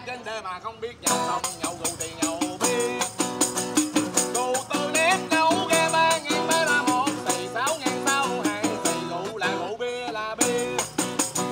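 A man singing a Vietnamese parody song with wavering held notes, accompanied by a strummed acoustic guitar and a shaken tambourine jingling in rhythm.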